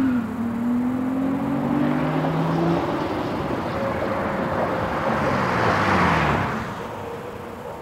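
2003 Nissan 350Z's 3.5-litre V6 through an Injen SES cat-back exhaust with a resonated X-pipe, accelerating toward the listener with its pitch rising. It passes close by about six seconds in, the note dropping as it goes past, then fades away.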